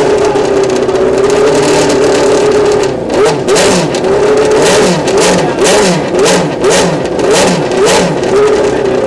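Formula racing car's engine running at a fast idle, then from about three seconds in blipped repeatedly: about seven quick revs, each rising and falling, less than a second apart, before settling back to idle near the end.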